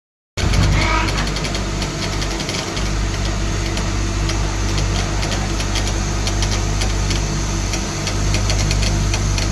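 CNC lathe turning a 30-spline shaft: a steady low machine hum with a rapid, irregular ticking of the cutting tool and chips. It starts abruptly about half a second in.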